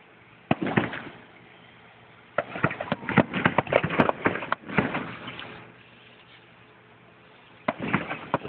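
Fireworks going off: a single bang about half a second in, then a run of rapid crackling reports for a couple of seconds midway, and more bangs near the end.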